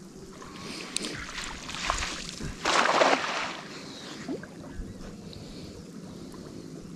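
Water splashing and sloshing, with one louder splash about three seconds in.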